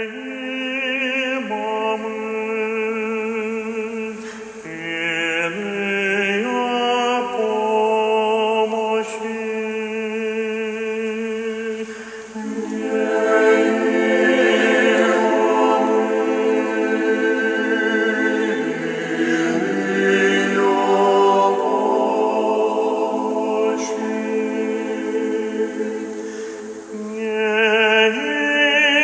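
Choir singing Orthodox liturgical chant a cappella: slow, sustained chords held with vibrato, changing every second or two, growing fuller and louder about halfway through.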